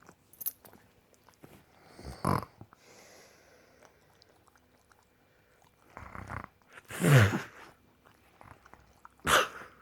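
A person making three loud mock sneezes: one about two seconds in, a drawn-out one around seven seconds that is the loudest, and a short sharp one near the end.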